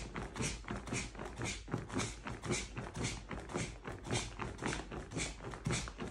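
Inflatable camping sleeping pad being pumped up through its built-in foot pump, pressed by foot about twice a second. Each stroke gives a short rush of air with a soft thump.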